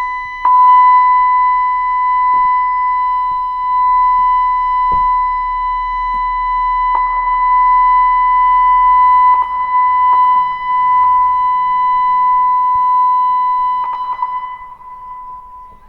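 LRAD DS-60XL emergency warning speaker sounding its monthly test tone: one steady, unwavering pitch, held for about fifteen seconds, then dying down near the end.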